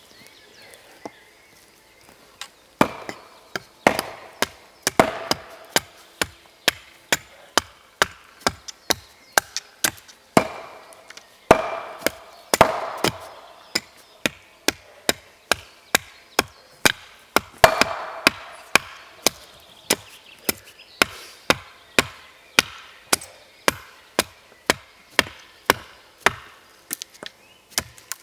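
Axe or hatchet chopping wood: a steady run of sharp strokes, about two a second, starting about three seconds in.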